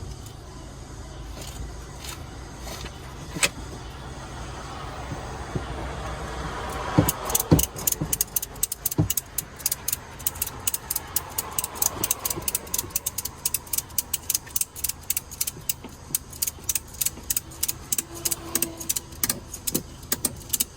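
Ratchet strap being tightened: a short stretch of the strap being pulled through, then the ratchet buckle worked back and forth, clicking steadily about four times a second, from about a third of the way in until near the end.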